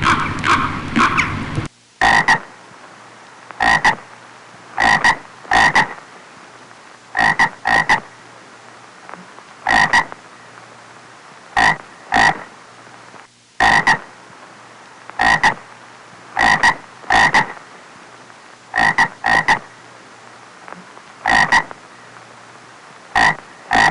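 A frog croaking repeatedly: short croaks, singly or in quick pairs, every second or two over a steady hiss. Louder background noise under the first few croaks cuts off suddenly near the start.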